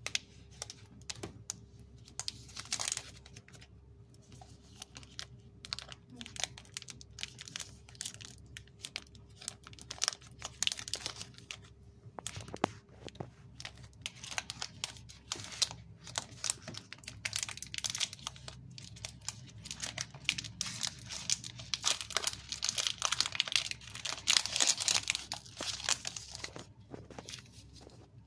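Plastic wrapper of a Cadbury Dairy Milk Silk Bubbly chocolate bar being torn open and crinkled by hand, with the paper-and-foil inner wrap rustling as it comes out. A dense, irregular run of crackles, loudest a little before the end.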